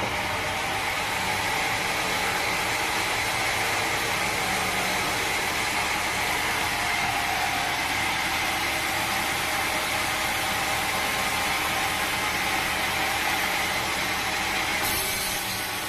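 Sawmill machinery running steadily, a constant mechanical noise with a faint steady whine that shifts slightly near the end.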